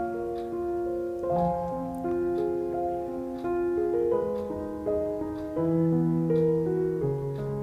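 Background piano music: a melody over held chords, each note sustained and ringing on.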